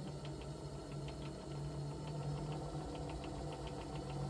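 Lathe running with its jaw chuck spinning as the speed is dialled up: a steady motor hum with faint, irregular ticking, getting slightly louder about two seconds in.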